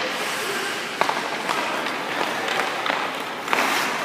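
Hockey goalie's skate blades scraping on the ice as he moves and settles into his stance, with a sharp knock about a second in and a louder scrape near the end.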